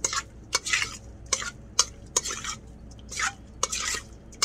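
Raw scallops being stirred in a bowl with oil, garlic, ginger and spices: a run of wet, squelching mixing strokes, about two a second, with light clicks.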